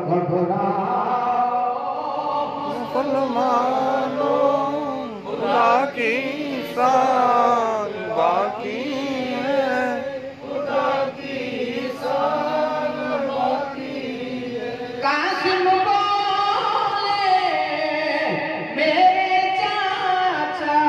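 A man chanting devotional verse solo into a microphone, in long held lines whose pitch bends and wavers in ornamented runs.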